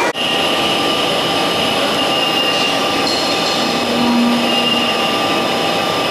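Vertical lathe turning a slurry pump part with a CBN insert: a steady rushing machine noise with thin high tones running through it. A short low hum sounds for about a second near the middle.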